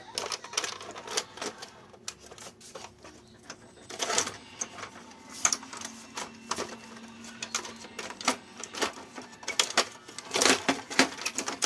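Irregular plastic clicks, knocks and rattles as the parts of a dismantled HP Deskjet 2510 inkjet printer are handled and worked loose by hand, with louder clusters about four seconds in and near the end.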